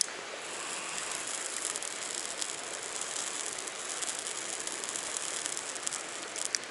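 A lighter clicked alight, its flame held close and hissing with a fine crackle for about six seconds as it melts a soft plastic worm. A few more clicks come near the end, over a steady rush of flowing water.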